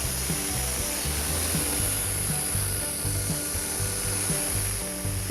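A power tool working wood, running steadily with a high hissing rasp, over background music.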